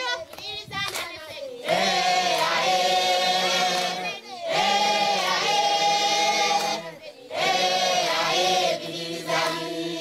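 A group of women singing together in three long phrases with held notes and short breaks between them.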